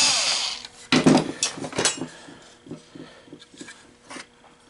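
A power screwdriver's whir dies away, then small parts of a bill validator are handled on a workbench: a few sharp clicks and knocks, followed by a run of light ticks about three to four a second.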